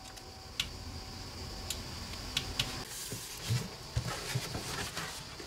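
Scattered light clicks and a few soft knocks of small screws and tools as the handle screws are fitted to a custom knife.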